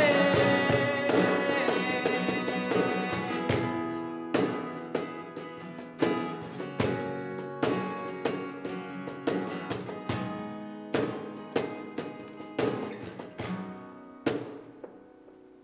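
Acoustic guitar strummed with cajón hits in a slow, steady rhythm, playing the last bars of a song and fading out gradually. A held sung note trails off in the first couple of seconds.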